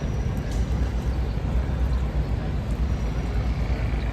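Steady low rumble of a vehicle in motion, even throughout.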